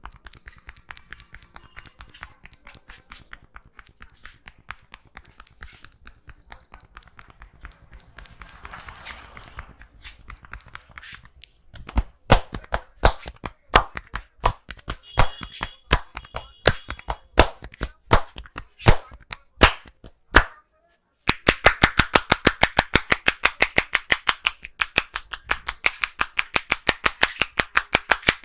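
Percussive head massage by a barber's hands. Faint, rapid tapping gives way about twelve seconds in to loud, sharp slaps about two or three a second. After a short pause from about twenty-one seconds, a fast, even run of hollow claps comes about six a second.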